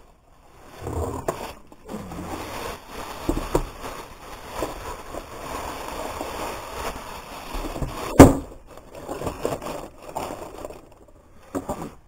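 Rustling, scraping and knocking of things being handled and shifted about, with one sharp knock about eight seconds in.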